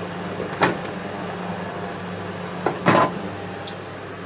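A microwave oven's door being opened and handled: a light click about half a second in, then a louder double clunk about three seconds in. A steady low hum runs underneath.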